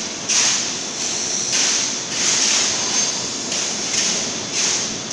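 Workshop machinery noise from an H-beam welding line: a steady din with hissing surges about once a second.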